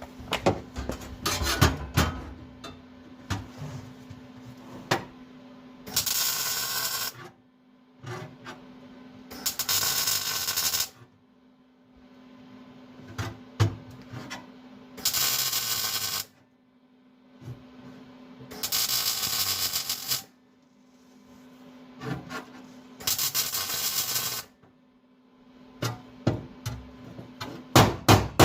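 Tack welds on sheet-metal floor patches: five short bursts of welding, each about a second and a half long, with light metallic taps and clanks between them and a steady low hum underneath. Quick, evenly spaced hammer blows start near the end as the patch is formed down.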